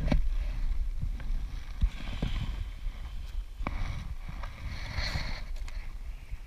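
Handling noise in an inflatable boat: scattered knocks and taps over a steady low rumble, as a caught bass is held up on the line.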